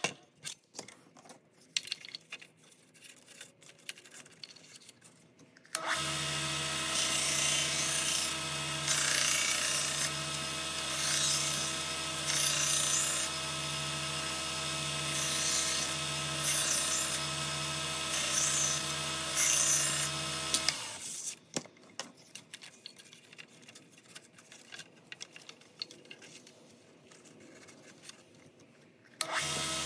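Bucktool 1x30 belt grinder starting about six seconds in and running with a steady motor hum for about fifteen seconds. A grinding hiss swells again and again as a kitchen knife edge is passed over the abrasive belt. It then stops, leaving light handling clicks, and starts up again just before the end.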